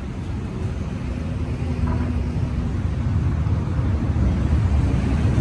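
Low rumble of a motor vehicle's engine, growing steadily louder.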